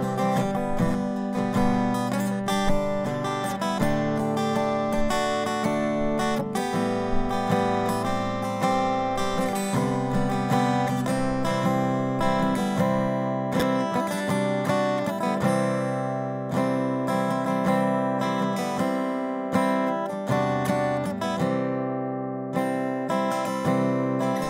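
Acoustic guitar instrumental playing as background music, notes plucked and strummed at an easy steady pace.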